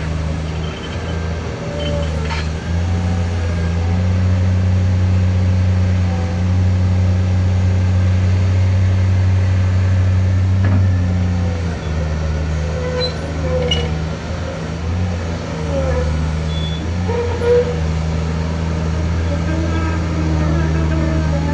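Komatsu PC2000-8 mining excavator's V12 diesel engine running under load: a steady low drone that shifts in strength a few times.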